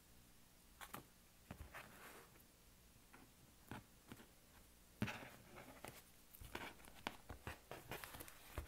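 Tarot deck being cut and restacked on a cloth-covered table: faint soft taps and slides of card piles, with a sharper tap about five seconds in and a run of small clicks and rustles near the end.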